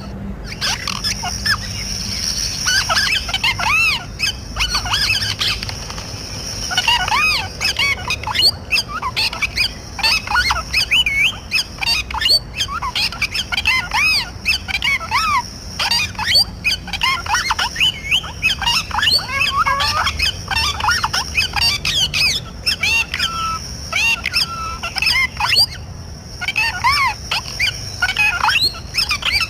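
Parrots squawking and chirping: a dense run of rapid, short, rising-and-falling calls with hardly a pause.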